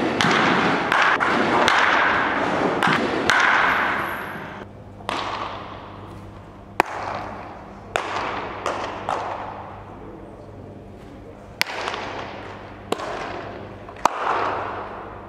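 Sharp cracks of a baseball being struck or caught, about eight of them at irregular intervals of one to two and a half seconds, each trailed by a brief wash of noise. Dense noise, likely crowd noise or applause, fills the first four seconds.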